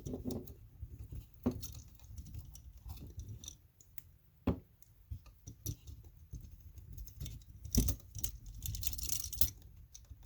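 Small screwdriver clicking and scraping against an old electrical outlet as it is pushed into a backstab release slot to free a stubborn wire: irregular light clicks and metal ticks, a few sharper ones, with some scratching near the end.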